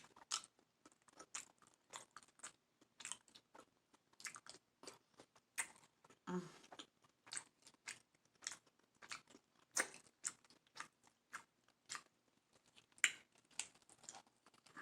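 Close-miked chewing of a seafood-boil mouthful: a steady, irregular run of short mouth smacks and clicks, with a brief low hum about six seconds in.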